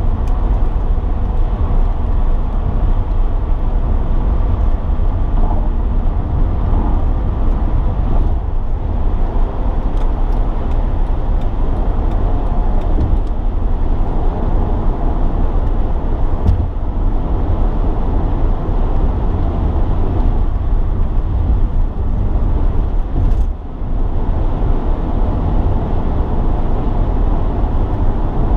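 Steady road and engine noise inside a Honda Accord's cabin at highway speed: a continuous deep rumble of tyres on pavement, with one brief lull late on.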